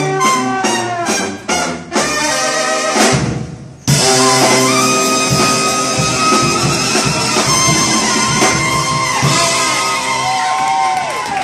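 Street brass band of horns, saxophone and drums playing loud jazzy brass music: short punchy rhythmic stabs, then about four seconds in a loud held chord that lasts several seconds, with a falling note near the end.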